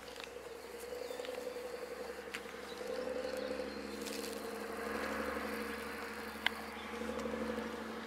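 An insect buzzing steadily, swelling and fading as it flies about. A few faint clicks, the sharpest about six and a half seconds in.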